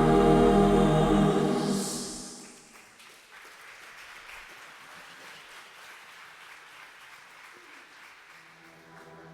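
A choir with accompaniment holds a final chord that fades out about two seconds in, followed by light, quiet applause from a congregation.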